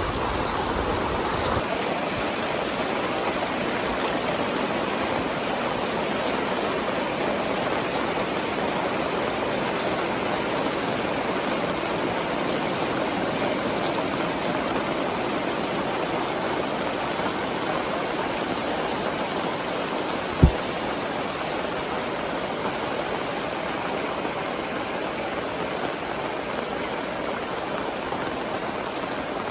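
Heavy tropical rain pouring down steadily, a dense, even hiss of downpour. A single short, low thump about twenty seconds in.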